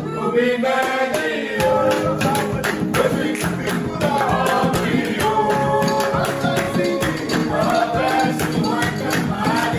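Upbeat gospel praise song with singers and percussion keeping a steady beat.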